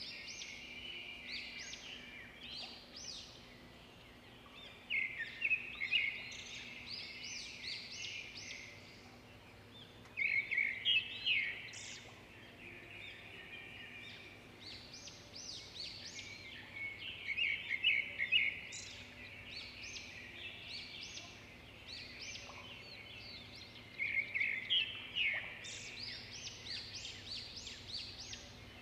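Small birds chirping and twittering, with bursts of rapid high chirps about every five to seven seconds over a faint steady hum.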